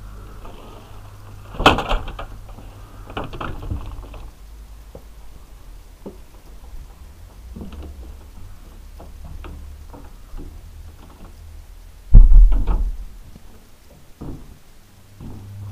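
Scattered knocks and bumps over a steady low hum, with a sharp knock near the start and a heavy thump about twelve seconds in, the loudest sound.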